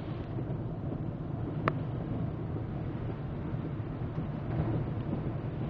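Car driving through shallow floodwater, heard from inside the cabin: a steady rumble of tyres and water spray hitting the windshield and body, with one sharp click a little under two seconds in.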